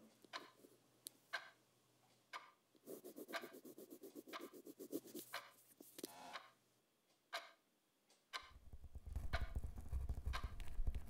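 A clock ticking about once a second, with a pen scratching quickly back and forth across notebook paper for a few seconds. About eight seconds in, a low rumble starts and swells.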